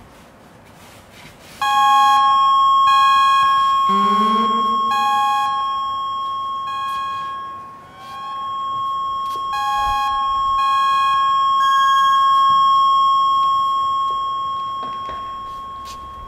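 Analog synthesizer sound art through studio monitors. A steady high electronic tone starts suddenly about a second and a half in and holds almost to the end. Shorter beeping tones come and go over it, with a few sliding pitch glides, the clearest about four seconds in.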